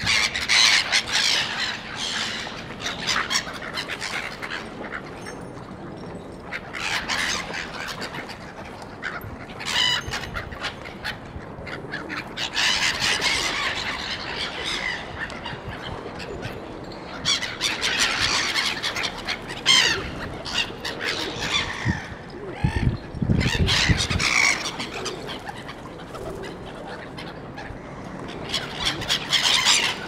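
A flock of gulls calling, with harsh squawks in repeated bursts every few seconds. There is a brief low rumble a little after two-thirds of the way through.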